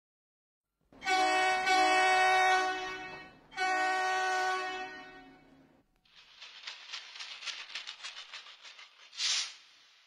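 Two long, steady horn blasts of about two seconds each, like a train horn. They are followed by a fast rattling clatter.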